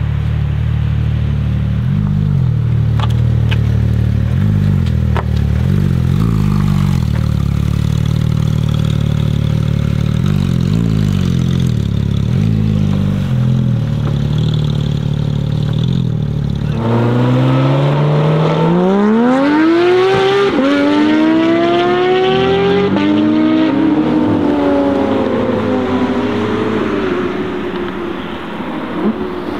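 Porsche 911 GT3 RS flat-six with a straight-piped iPE exhaust, first rumbling at low revs with small swells of throttle. About seventeen seconds in it suddenly revs hard under acceleration, the pitch climbing steeply, dipping at a gear change and climbing again, then falling away as the car drives off.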